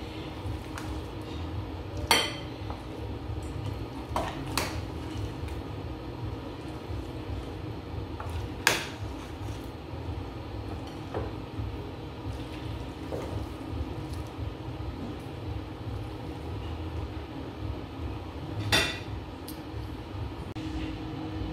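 Metal serving spoon scraping and clinking against a stainless steel pot and a plate as soup is dished out: scattered sharp clinks, the loudest about two, nine and nineteen seconds in, over a steady low hum.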